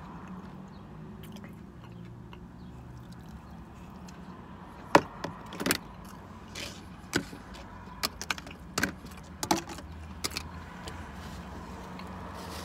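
Plastic sauce cups and lids clacking as they are dropped into a plastic takeout bowl: a string of sharp clicks and knocks starting about five seconds in, over a low steady hum.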